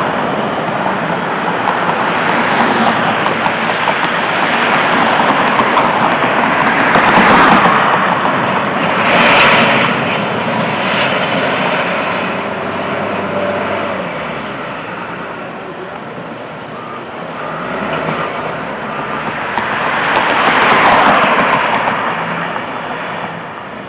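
Road traffic, with vehicles passing one after another, each swelling and fading over a few seconds. A brief sharper hiss comes about nine seconds in.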